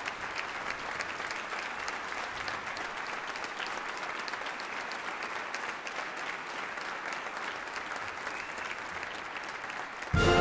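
Concert-hall audience applauding steadily. Just before the end, a military concert band's brass section suddenly strikes up loudly over the clapping.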